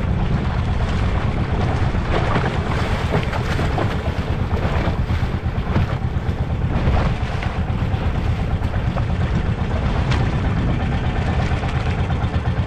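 Engine of a small motorized outrigger fishing boat running steadily with a fast, even low pulse, with wind on the microphone and the wash of choppy sea around the hull.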